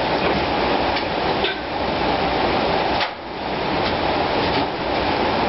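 High-volume drum fan, turned up to a higher airflow setting, running with a fabric filter net over its front: a steady, loud rush of air, with a few light clicks.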